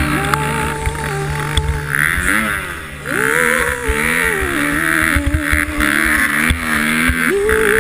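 Dirt bike engine revving up and down under load as it climbs. The revs sag briefly just under three seconds in, then pick up sharply again.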